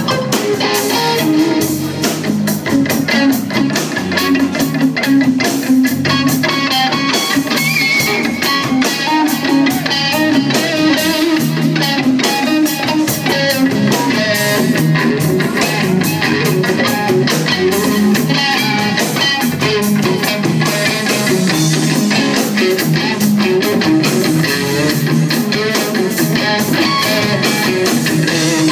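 Live rock band playing: electric guitar over electric bass and a drum kit, with steady drum hits all through.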